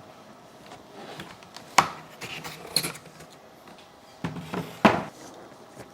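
Knocks and clicks from handling an RC model's packaging while it is being unboxed. There are a few separate sharp sounds, the loudest about two seconds and five seconds in.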